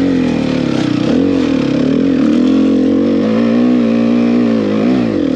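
Enduro dirt bike's engine revving hard under load while it tries to climb a slope. The pitch rises and falls, holds high for a couple of seconds, then drops sharply near the end.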